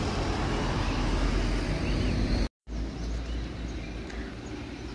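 Motor vehicle running on a road, a steady noise with a low rumble. The sound drops out completely for a moment about halfway, then carries on a little quieter.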